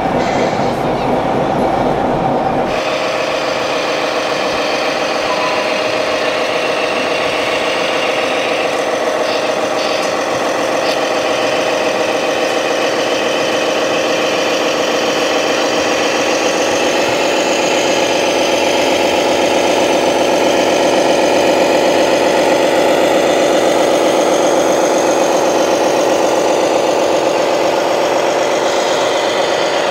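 Radio-controlled model truck's electronic sound module playing a diesel truck engine sound through its small speaker, running steadily. A different, noisier sound fills the first few seconds, and the engine pitch steps up slightly about seventeen seconds in.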